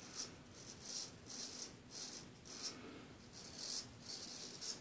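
Anthony Esposito Gold Monkey 777 straight razor scraping through lathered stubble on the neck in short strokes, a faint rasp with each stroke, about two a second.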